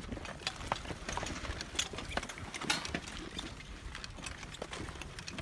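Footsteps crunching and scuffing on a loose, rocky trail, in an uneven run of sharp crunches and small stone clatters.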